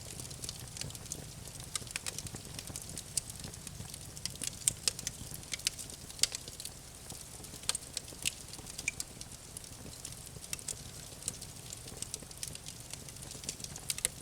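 Campfire crackling: irregular sharp pops and snaps of burning wood over a low steady rumble of the flames.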